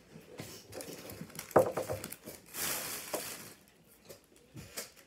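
Plastic snack packaging rustling and crinkling as it is handled, with a sharp knock about a second and a half in.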